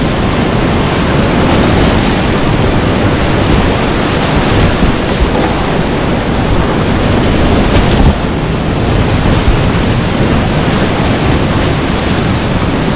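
Loud, steady rushing of whitewater in a steep mountain river gorge, with a short knock about eight seconds in.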